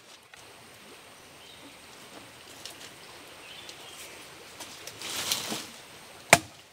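A single sharp chop of a machete blade into wood about six seconds in, following a brief rustle of branches being handled over a faint forest background.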